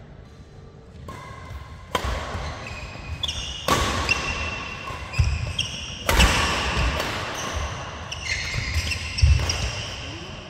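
Badminton doubles rally: rackets strike the shuttlecock in several sharp, echoing cracks a second or two apart, among short squeaks of sports shoes on the synthetic court mat and low footfalls.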